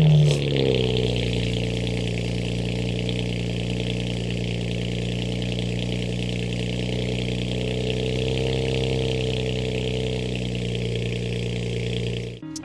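BMW 335i's N54 twin-turbo inline-six, still on its factory exhaust, just started. Its revs flare at first and settle within about a second into a steady idle, which cuts off suddenly near the end.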